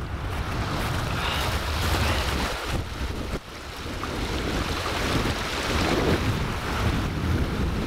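River water rushing over rocks, a steady noise with a heavy low rumble of wind buffeting the microphone.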